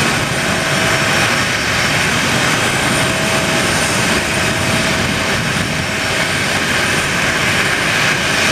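Jet engines of a twin-engine Boeing 737 taxiing at low thrust: a steady, even roar and whine, with a faint steady hum that drops out and returns.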